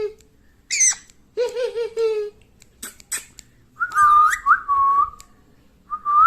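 Pet talking parrot calling in a string of separate sounds: a high gliding squawk, a short wavering speech-like phrase, a few sharp clicks, then whistled notes that bend up and settle, with one more rising whistle near the end.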